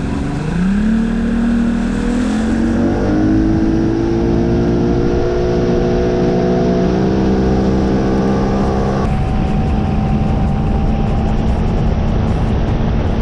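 Bass boat's outboard motor running under way. It rises in pitch over the first few seconds as the boat speeds up, then holds a steady drone at speed.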